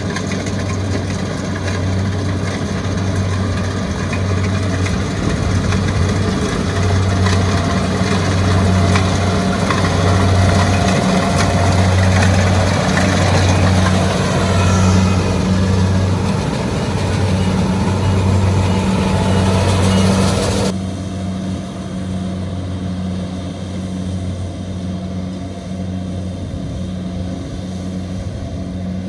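Kubota rice combine harvester's diesel engine running steadily with a pulsing low hum, under busy mechanical noise from the machine. The higher noise thins out suddenly about two-thirds of the way through, leaving mostly the engine hum.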